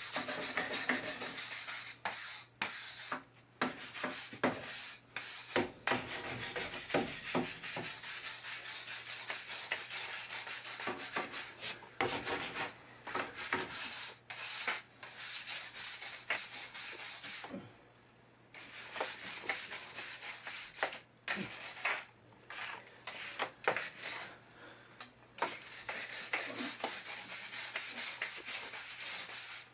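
Hand scrubbing of a concrete foundation wall, rough scraping strokes in irregular runs with short pauses, cleaning the surface along a crack to prepare it for injection repair.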